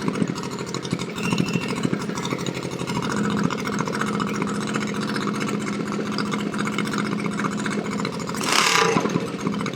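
236cc Tillotson stroker single-cylinder engine running steadily, with a short louder rush of noise near the end.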